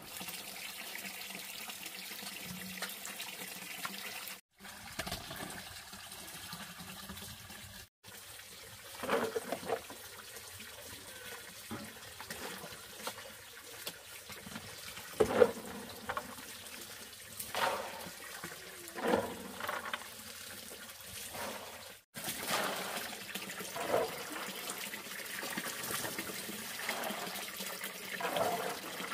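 Water running steadily, with a splash or slosh every few seconds.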